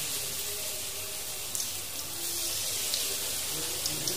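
Bakwan vegetable fritters frying in a pan of hot oil, a steady sizzle, with a few light clicks of the spoon as batter is scooped and dropped in.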